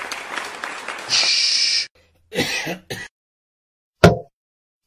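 Cartoon sound effects: applause that cuts off about two seconds in, then a few short throat-clearing sounds, the loudest about four seconds in.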